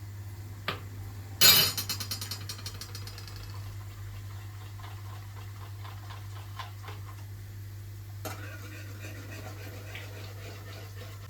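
Kitchenware being handled: a loud clank about a second and a half in that rattles away over a second or two, then light clicks and taps and a second rattle later on, over a steady low hum.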